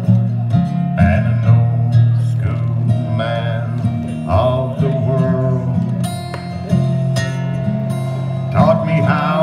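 Two acoustic guitars playing an instrumental break in a country song: steady strummed chords with a melody line moving over them.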